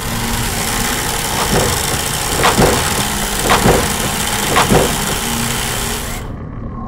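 Electronic underwater soundscape of a VR installation: a dense loud hiss over a low engine-like rumble, cut by several quick falling sweeps about once a second. The hiss cuts off suddenly about six seconds in.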